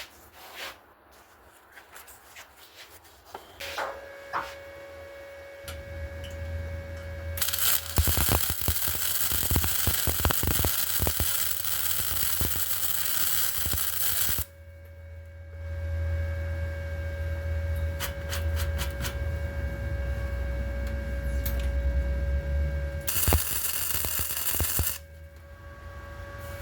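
Welding on a steel truck bumper: two runs of crackling, hissing arc, one about seven seconds long and a shorter one of about two seconds near the end, with the welder's low hum beneath. The welder is filling the crevices left around shaved bumper-bolt holes.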